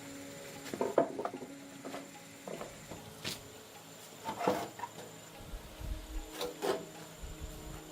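A few short knocks, clicks and rubbing sounds, in clusters about a second in, near the middle and toward the end, over a faint steady hum.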